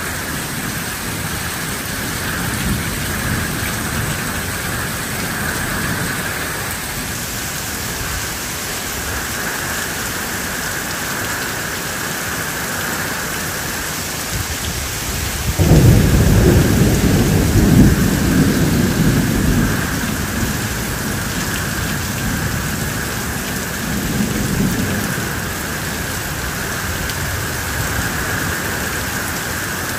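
Steady downpour of rain, with a sudden loud rumble of thunder about halfway through that rolls on for several seconds before fading, and a fainter rumble a few seconds later.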